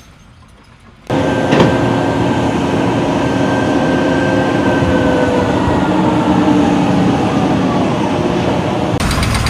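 A loud, steady mechanical rumble with faint whining tones that slowly drift lower. It starts suddenly about a second in and changes character near the end.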